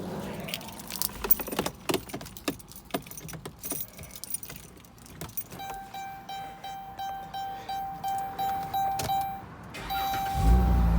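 Car keys jangling and rattling, then a dashboard warning chime dinging about twice a second. About ten seconds in, the Chrysler Town & Country's 3.6-litre V6 starts and settles into a steady run.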